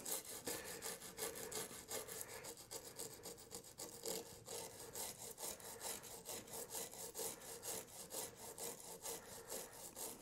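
Small stiff flux brush wet with isopropyl alcohol scrubbing lightly back and forth over the solder side of a circuit board, a faint scratchy stroke several times a second, cleaning off flux residue.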